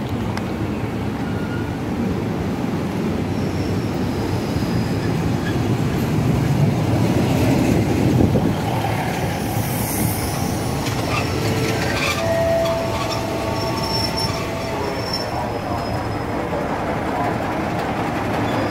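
Diesel railcar commuter train rolling past close by, loudest as the leading cars go by. Thin wheel squeal from the rails comes and goes over the second half.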